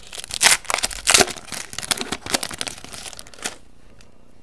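Foil wrapper of a trading card pack being torn open and crinkled, a run of sharp crackles that stops about three and a half seconds in.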